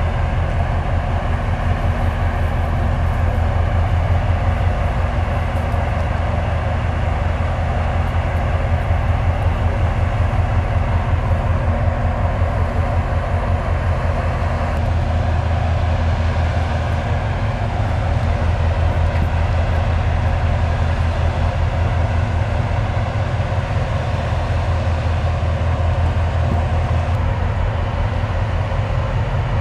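Marine diesel engines of a Japan Coast Guard Tokara-class patrol vessel running steadily, with a deep, fast-pulsing throb under a constant mechanical hum.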